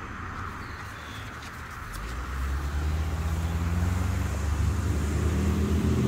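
A motor vehicle's engine comes in about two seconds in and grows steadily louder, its low pitch slowly rising as it accelerates.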